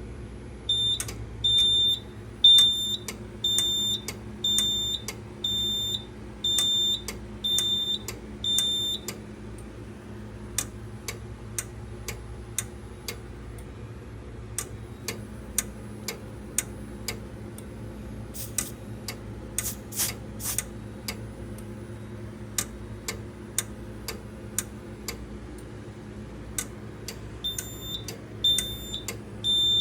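Fire alarm sounder beeping a high-pitched tone about once a second. It stops after about nine seconds, leaving scattered clicks and a few short bursts of hiss over a steady low hum, and starts beeping again near the end.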